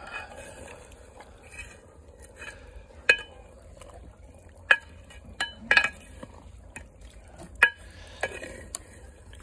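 A metal ladle stirring a thick chicken curry in a metal cooking pot. It scrapes through the gravy and knocks against the pot several times with short ringing clanks, the loudest a little after the middle.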